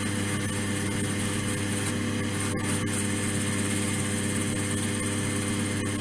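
Wood lathe motor running at a steady speed, an even hum with a hiss over it and one faint click partway through.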